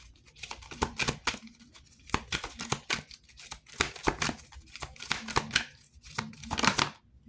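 A deck of reading cards being shuffled and handled, an irregular run of quick snaps and flicks of card stock.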